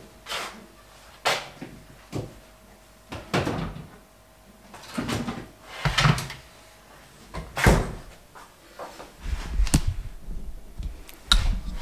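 Kitchen cupboard doors and things being handled: a string of separate knocks and bumps, about seven of them, spread out with quiet gaps between.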